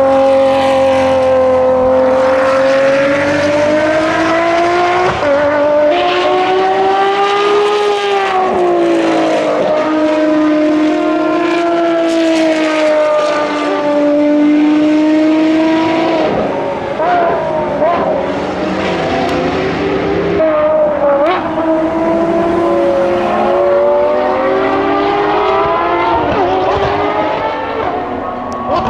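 Ferrari XX Programme track cars, a 599XX and an FXX K Evo, running their V12 engines hard at high revs. The engine note climbs and falls with gear changes, downshifts and cars passing, loud throughout.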